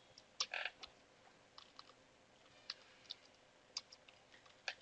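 Faint computer keyboard keystrokes: a quick cluster of key clicks about half a second in, then single, unevenly spaced taps through the rest.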